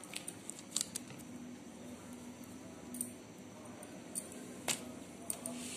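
A few light clicks and taps with soft paper rustling, from a cup rim being pressed into rolled biscuit dough and the cut rounds being lifted off the paper sheet.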